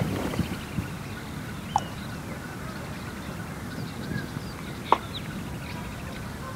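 Open-air ambience: a steady background hiss with faint bird chirps, a sharp sound at the very start, and two short sharp sounds about three seconds apart.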